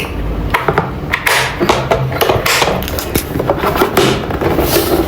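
Irregular knocks and thumps, several a second, over background music.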